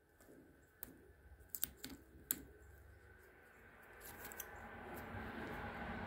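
Faint light clicks and taps of small metal parts being handled and fitted together by hand: a few single clicks, then a short cluster of them, over a faint hiss that grows near the end.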